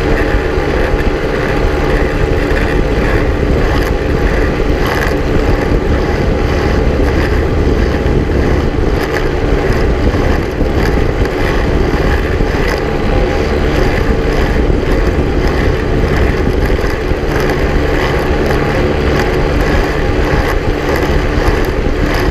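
Quicksilver ultralight's engine and pusher propeller running steadily at cruise power in low flight, a constant drone.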